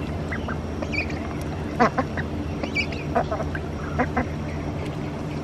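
Domestic ducks quacking in a string of short calls, the loudest about two seconds in, over a steady low hum.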